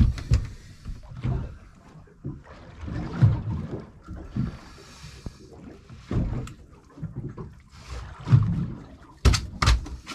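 Irregular thumps and knocks of someone handling gear on a small fishing boat while reaching into a hatch to lift out a caught bass, with a short splashing hiss about four seconds in.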